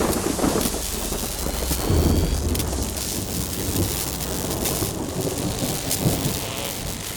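Off-road race vehicle running at speed: a low engine rumble under a steady rush of wind and road noise, with a faint rising whine about two seconds in.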